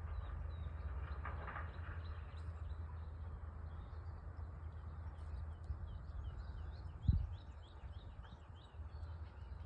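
Small birds chirping in short repeated calls, in a quicker run near the end, over a steady low rumble, with one short thump about seven seconds in.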